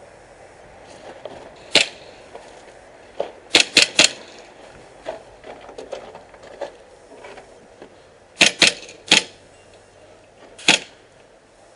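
Airsoft gun shots: about eight sharp cracks, a single one, then a quick burst of three, a few seconds later another three, and a last single shot.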